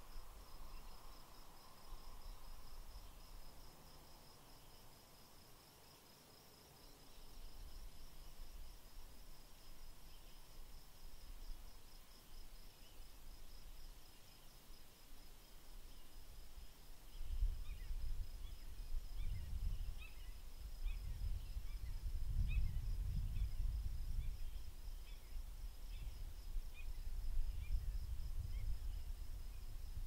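An insect trilling on one high, even, pulsing note. A little past halfway, a low wind rumble sets in on the microphone, with scattered short bird chirps.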